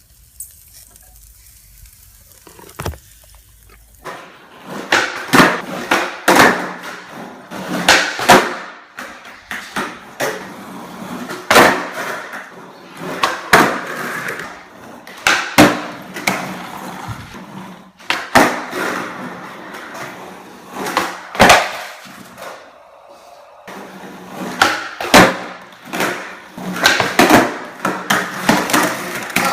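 Skateboard rolling, starting about four seconds in, with repeated sharp clacks of the board being popped, flipped and landed.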